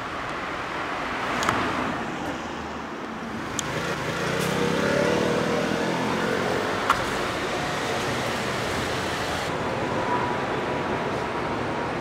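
Urban street traffic noise: a steady road hum with a vehicle passing about four to six seconds in, and a few short sharp clicks.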